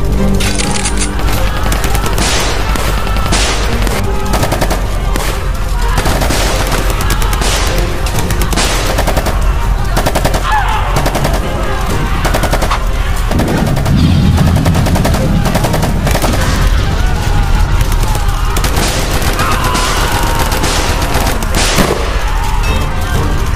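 Battle sound effects: rapid machine-gun and rifle fire in long bursts over background music, with a deep rumble about halfway through.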